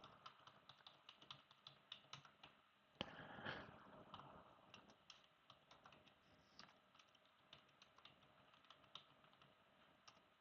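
Faint computer keyboard typing: scattered, irregular keystrokes. A brief, slightly louder rustle comes about three seconds in.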